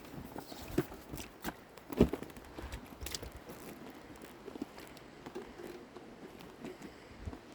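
Scattered clicks and knocks with one louder thump about two seconds in, over faint rustling.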